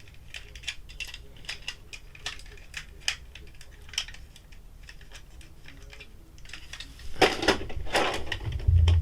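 Hard plastic parts of a Deluxe Super Zeo Megazord toy clicking and clacking as they are turned, folded and fitted together by hand, in irregular light taps, growing louder and busier near the end.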